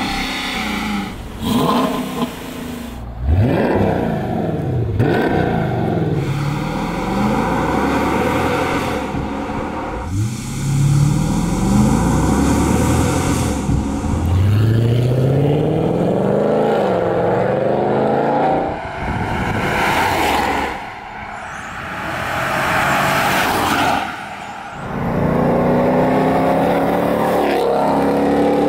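Jeep Grand Cherokee's 5.7-litre Hemi V8 exhaust under hard acceleration, in several pulls whose pitch climbs and drops back at each upshift. The exhaust is first heard stock, then with Stainless Works headers on the stock system, and near the end with headers plus the Redline catback.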